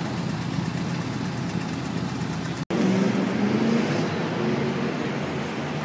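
Railway station concourse ambience: a steady low rumble like idling engines carrying under the big roof. The sound drops out for an instant a little under three seconds in, then comes back louder.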